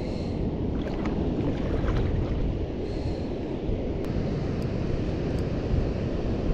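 Wind buffeting the microphone in a steady low rumble, with water lapping underneath and a few faint clicks.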